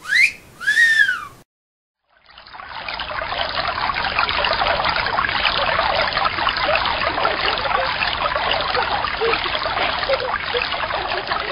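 A two-note wolf whistle, one rising glide then a rise-and-fall, followed a moment later by the steady hiss of a hose spraying water, as in washing a car.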